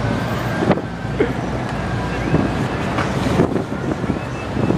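Busy street ambience: wind buffeting the microphone over a murmur of crowd voices and city traffic, with a few short knocks.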